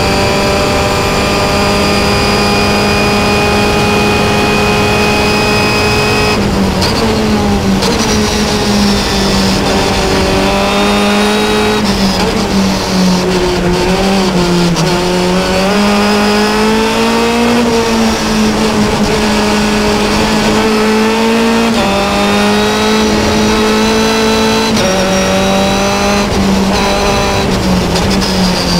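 Onboard sound of a Carbir DS3 Formula Continental's 2-litre Ford Zetec four-cylinder engine at racing speed. It holds a steady high note flat-out for about six seconds, then the pitch drops in steps as the car brakes and shifts down for a corner, and it rises and falls through the following corners.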